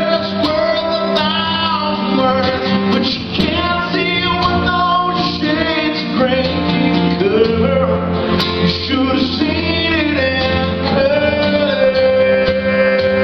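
Live acoustic country song: a man singing while strumming an acoustic guitar.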